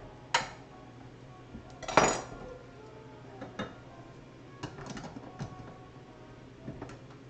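Metal clinks and scrapes of a utensil working at a tin can's lid to open it by hand, with no can opener: a sharp clack less than a second in, a louder ringing clank about two seconds in, then several lighter clicks.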